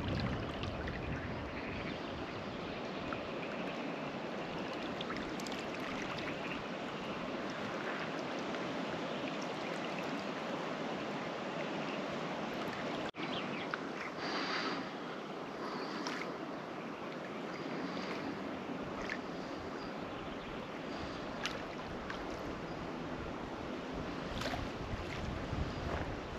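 Steady rushing outdoor ambience with no clear single source, with a few short high chirps and clicks after about halfway.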